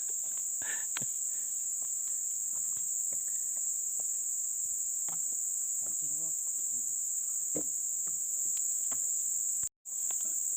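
Steady high-pitched insect chorus, with faint voices calling now and then. It drops out for a moment near the end.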